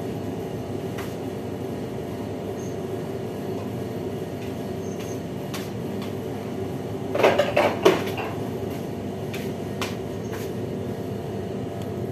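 Steady machine hum, like a kitchen extractor or air-conditioning fan, under small clicks of containers being handled at a counter, with a brief clatter of dishes and jars about seven seconds in.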